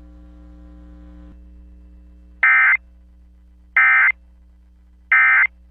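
Emergency Alert System end-of-message data tones: three identical short, harsh digital bursts, each about a third of a second long and about 1.3 s apart, closing the alert. A faint steady hum sits under them.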